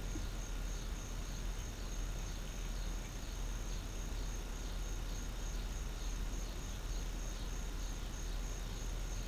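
Insects chirping steadily outdoors: a high, evenly pulsing trill over a low, constant rumble.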